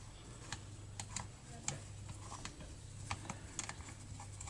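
Light, irregular metal clicks of a screwdriver turning a screw home in a chainsaw's housing, over a low steady hum.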